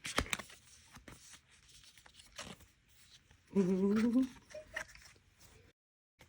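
Handling of mini photocards and their plastic and foil packs: crinkling, rustling and sharp clicks, busiest just after the start. About three and a half seconds in, a short rising hummed "mm" from the person sorting the cards is the loudest sound.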